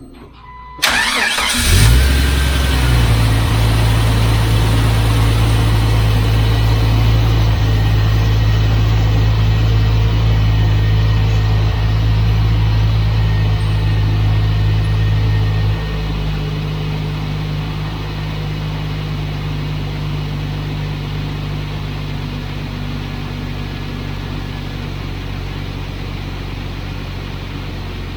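Jeep XJ engine starting up about a second in after the rear main seal and oil pan gasket job, then running at a steady fast idle; about halfway through the idle drops to a lower, quieter speed.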